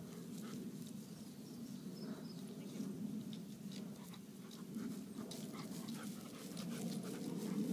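German shepherd panting and moving about on grass, a run of short breathy puffs over a steady low hum.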